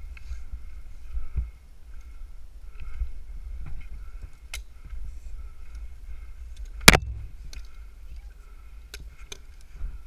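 Climbing rope and hardware being handled high in a tree: rubbing and scattered clicks over a low steady rumble, with one sharp knock about seven seconds in.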